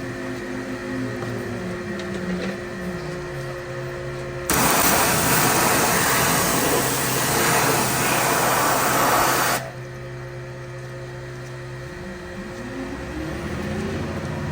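Pressure washer spraying a motorcycle chain: a motor hum that drops in pitch and settles, then a loud hiss of water spray for about five seconds that starts and cuts off sharply. The hum stops a couple of seconds later and rises again near the end.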